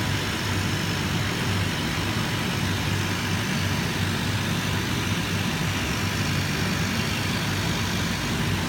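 Automatic camera-positioning cutting machine running: a steady low hum under an even hiss that does not change.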